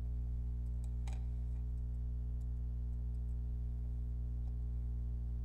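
Steady low electrical hum with a few faint clicks, the clearest about a second in.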